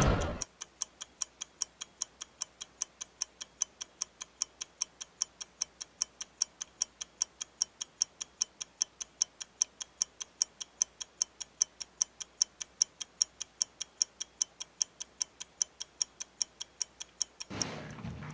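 Clock ticking steadily, about three sharp ticks a second. The ticking stops near the end as ordinary room noise comes back.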